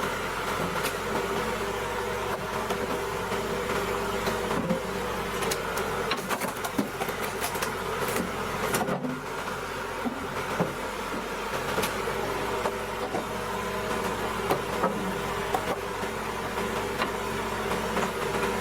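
Hydraulic horizontal wood splitter running steadily under load as its ram drives a large log onto the splitting blade, with scattered sharp clicks and cracks.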